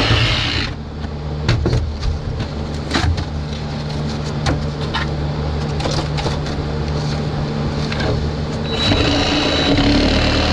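Cordless reciprocating saw running, cutting rotten stringer wood and foam inside a boat hull, with scattered knocks and clatter as the blade hits material. About nine seconds in it gets louder and higher-pitched.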